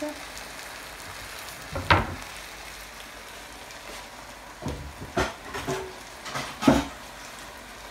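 Okra, leeks, smoked fish and freshly added tomato sizzling steadily in oil in a frying pan, with a few sharp knocks, one about two seconds in and a cluster near the end.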